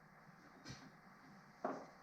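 Two faint knocks about a second apart, the second sharper and louder, over quiet garage room tone: handling noise from work on the mower.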